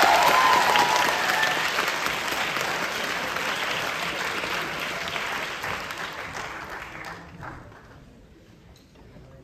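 Audience applauding, loudest at first and dying away over the last few seconds, with a voice calling out over it near the start.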